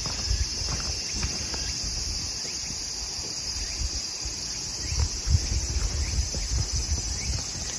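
Steady high-pitched drone of an insect chorus, with irregular low thumps underneath.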